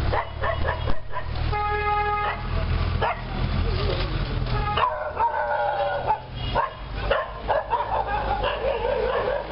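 Dog barking repeatedly over a steady low rumble of street noise, with a steady pitched tone of about a second near the start.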